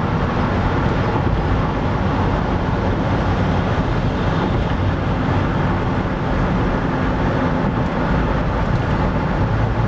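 Car driving at highway speed, heard from inside the cabin: a steady rumble of road and engine noise.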